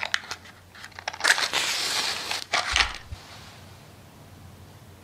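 A few light clicks of a matchbox being handled, then a match struck on the box's striking strip: a loud scrape and hiss lasting about a second as it flares, followed by a shorter second scrape, then quiet burning.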